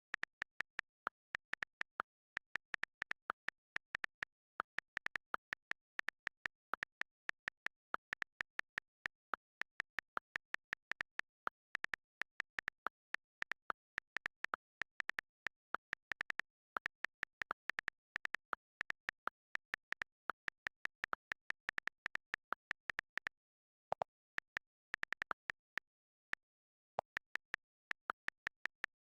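Rapid, identical key-press clicks from a phone's on-screen keyboard, several a second in uneven runs as someone types, with short pauses near the end.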